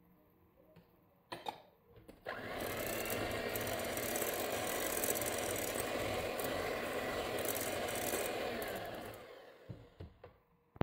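Electric hand mixer whisking sour cream into egg-and-butter cake batter in a glass bowl. After a couple of knocks, the mixer starts about two seconds in, runs steadily for about seven seconds, then winds down and stops, followed by a few small clicks.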